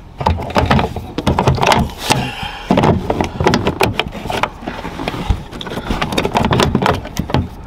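Plastic trim parts and a wiring connector being handled by hand: an irregular run of clicks, knocks and scrapes as the old module is worked out and the new one is plugged into its connector.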